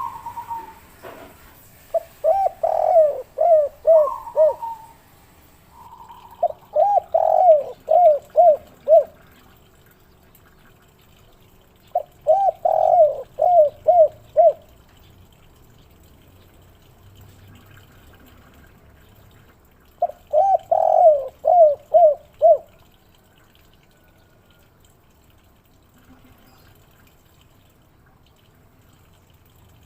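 Spotted dove (derkuku) cooing its 'kuk 3' song: four phrases of five or six quick coos each, several seconds apart, with a few single higher notes between them.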